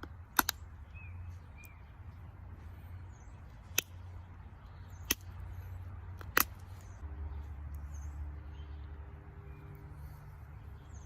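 Chert being flintknapped: five sharp clicks as flakes come off the stone, a close pair near the start and then three single ones about a second and a half apart. Faint bird chirps are heard between them.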